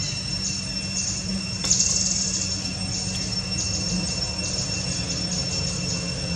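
Steady outdoor background: a constant high-pitched ringing with pulsing high hiss over a low hum, and one short sharp burst about two seconds in.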